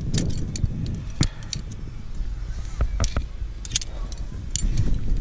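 Climbing hardware clinking: carabiners and quickdraws on a harness rack knocking against each other in a handful of sharp clicks, over a steady low rumble.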